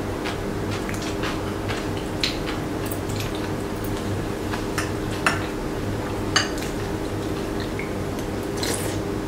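Metal chopsticks and spoons clicking and clinking against ceramic bowls and plates during a meal, in scattered light taps, the sharpest about two, five and six seconds in, over a steady low hum.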